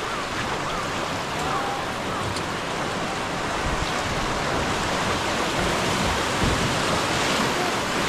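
River water rushing past in a steady noisy wash, growing a little louder toward the end.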